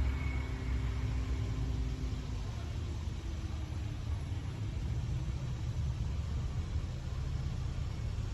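Low, steady rumble of a departing SEPTA Silverliner V electric train moving away, with a hum that fades out over the first couple of seconds.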